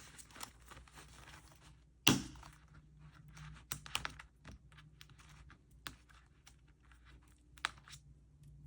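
Paper and plastic binder envelopes being handled on a table: scattered light clicks, taps and rustling, with one louder thunk about two seconds in.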